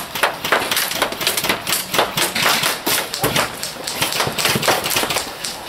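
Airsoft gunfire: a dense, irregular string of sharp cracks and knocks, several a second, from semi-auto shots and BBs striking the wooden walls and boards.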